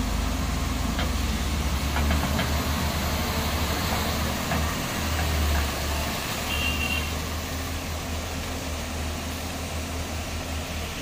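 Heavy diesel engines running with a steady low rumble: a loaded dump truck pulling away, with a Tata Hitachi hydraulic excavator working behind it.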